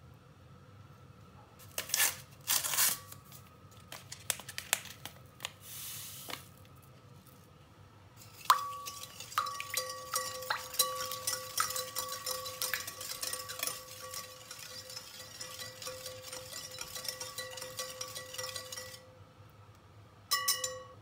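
Wire whisk beating eggs, sugar and oil in a glass bowl: a fast, continuous clicking of the wires against the glass, which rings under the strokes. In the first seconds there are only a few separate knocks and clinks, and near the end the whisk clatters briefly against the bowl again.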